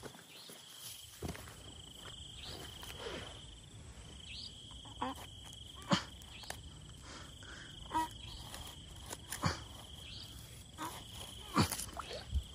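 A night insect trilling on one steady high pitch, breaking off briefly a couple of times, with scattered knocks and rustles of footsteps and handling in the grass.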